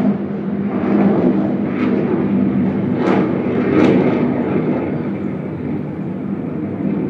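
Airplane passing near an airport, heard from inside a room: a loud, steady rush of engine noise with a low hum under it, swelling in brief surges about one, three and four seconds in.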